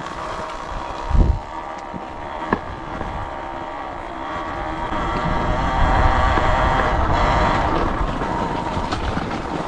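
A small off-road vehicle's engine running as it is ridden along a dirt trail, getting louder about halfway through as it picks up speed. A low thump about a second in and a smaller knock a little later.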